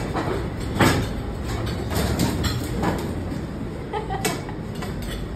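Knocks and bumps of metal diner stools being leaned on and climbed over, over a steady low rumble; the loudest knock comes about a second in.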